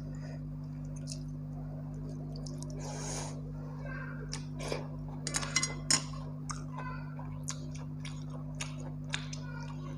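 Close-up eating sounds: wet clicks and smacks of chewing and of fingers working rice and mutton curry by hand, with a cluster of sharper clicks about halfway through. A steady low electrical hum runs underneath.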